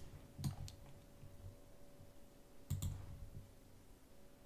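Computer mouse button clicks: a quick pair about half a second in and another pair near three seconds in, over a faint steady hum.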